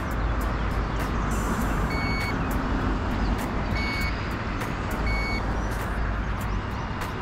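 Three short, high electronic beeps, each under half a second and about a second and a half apart, over a steady rumbling noise with scattered clicks.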